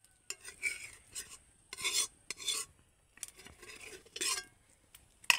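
A spoon stirring and scraping in a cooking pot: a run of short scraping strokes, about two a second, with a sharp clink near the end.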